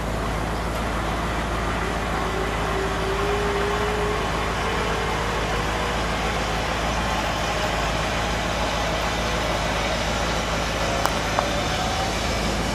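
1959 Ford Skyliner retractable hardtop mechanism running as the steel roof lifts and folds back into the trunk: a steady mechanical drone over a low hum, with a faint whine that slowly rises in pitch. Two sharp clicks come near the end.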